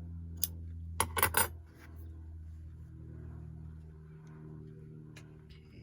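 A few short metallic clicks, one about half a second in and a quick cluster about a second in, over a steady low hum.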